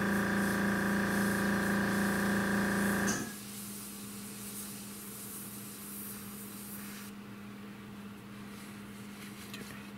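Airbrush hissing as it sprays paint over a steadily humming air compressor. The compressor hum cuts off suddenly about three seconds in, and the airbrush's air hiss fades out about seven seconds in.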